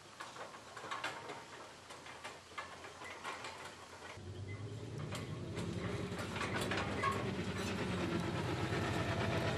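Pickup truck towing an empty steel flatbed trailer over a rough dirt track: light clattering and rattling, then from about four seconds in an engine comes in with a low hum that grows louder toward the end.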